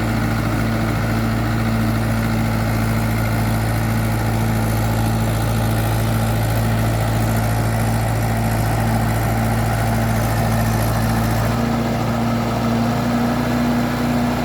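Tractor engine running steadily; its note changes about eleven and a half seconds in.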